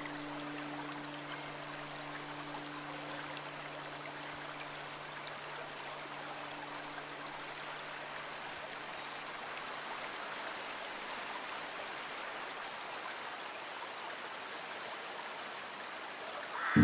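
Steady rushing of a flowing stream. A low, steady hum sounds under it at first and fades away within the first several seconds.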